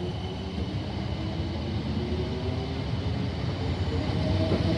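South Western Railway electric multiple unit pulling out of the station, its traction motors whining and rising in pitch as it gathers speed, over the rumble of the wheels on the track.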